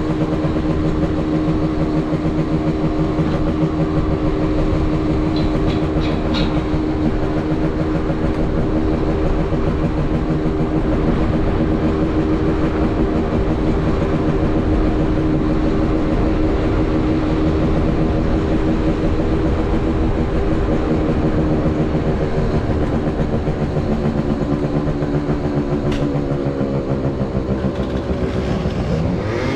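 Scooter engine running at a steady speed while riding, a constant pulsing engine note. Near the end the note dips and then climbs again as the throttle changes.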